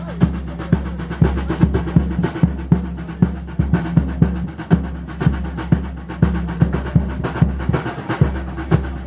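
Drums beating a steady rhythm, about two heavy low strikes a second with lighter strokes in between.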